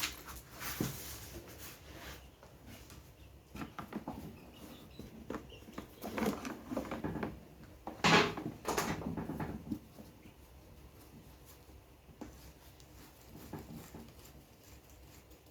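Irregular clicks, knocks and scraping of things being handled, with the loudest clatter about eight seconds in.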